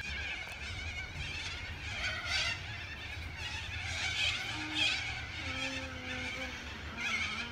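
A steady high-pitched buzzing whine from a small motor, swelling a few times, with wind rumbling on the microphone.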